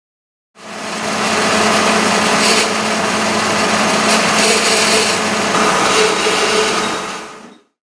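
Milling machine spindle running and drilling a 2 mm hole in a metal workpiece: a steady machine hum with a dense grinding hiss over it, starting suddenly about half a second in and fading out near the end.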